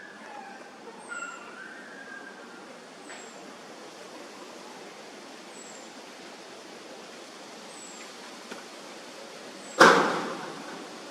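A single loud, sudden bang about ten seconds in, fading out over about a second, over steady background hiss. A short, high, falling chirp repeats about every second and a half, and a few short chirping calls come in the first two seconds.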